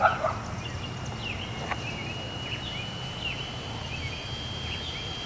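Outdoor ambience: small birds chirping in short falling calls over a steady low background hum, with a thin steady high whine from about a second in and a brief louder sound right at the start.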